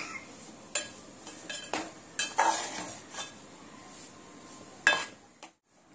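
A spatula scraping and knocking against a metal pot as besan (gram flour) is stir-roasted in ghee, with a faint frying hiss under it. There are several separate scrapes, the loudest about five seconds in, and the sound drops out briefly just before the end.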